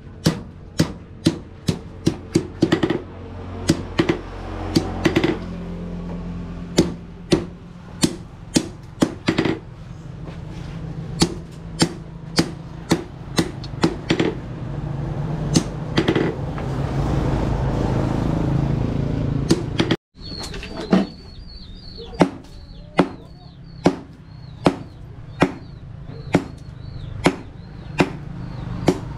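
Hand hammer blows striking rebar on an anvil during forging, a steady rhythm of about two sharp clanks a second, with a short break about twenty seconds in.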